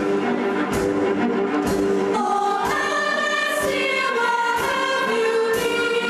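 A symphony orchestra and a large school choir performing film music live. The choir holds sustained sung chords over the orchestra, with a steady beat about once a second.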